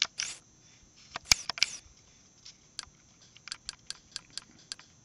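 A series of short, sharp clicks as Kodi's menus are stepped through, scattered at first and then a quick run of about eight near the end.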